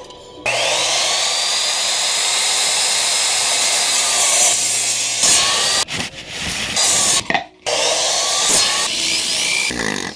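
Electric miter saw spinning up with a rising whine and cutting through wooden boards, in several loud bursts that cut off abruptly. A power drill runs near the end.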